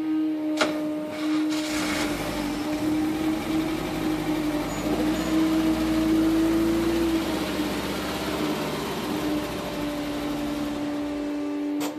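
VW Vanagon engine running under load as the van is reversed up onto drive-on ramps. It builds about a second and a half in and eases off near the end.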